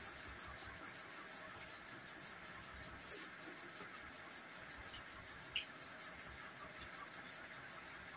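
Faint steady background noise, with soft sounds of people eating rice and fish by hand and one short sharp click a little past halfway.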